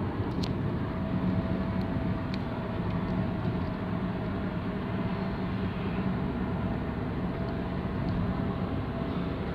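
Steady drone of a car driving at speed, heard from inside the cabin: engine and tyre noise with a low hum.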